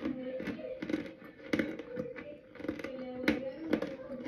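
Close-up chewing of a mouthful of cornstarch: irregular wet crunches, a few each second.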